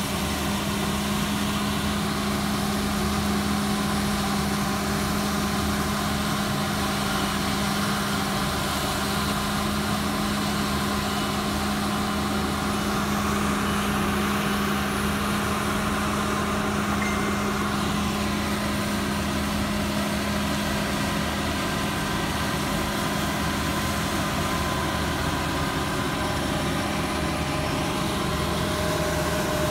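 Combine harvester working, its engine running at a steady, unchanging drone.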